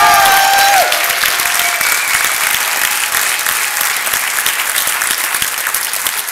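Audience applauding, with a few cheering voices in the first second. The clapping slowly thins and quietens.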